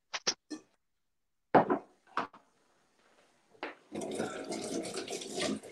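A few short sharp knocks and clicks, then a kitchen tap running into the sink from about four seconds in, with hands being rinsed under the water.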